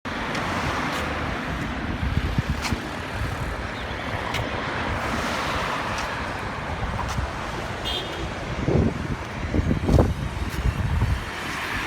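Road traffic on a busy highway: a steady wash of passing cars' engine and tyre noise, with a brief high beep about eight seconds in.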